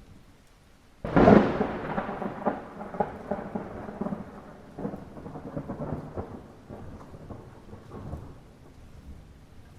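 Light rain falling, then about a second in a sudden loud thunderclap that rumbles and crackles on, slowly fading over several seconds.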